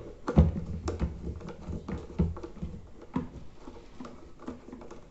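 Plastic electric kettle body being handled and turned over in the hands: irregular light plastic clicks and knocks, with a few duller thumps in the first couple of seconds.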